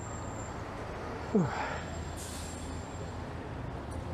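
Street traffic: a vehicle engine's steady low hum, with a short, loud sound falling in pitch about a second in and a brief hiss a little later.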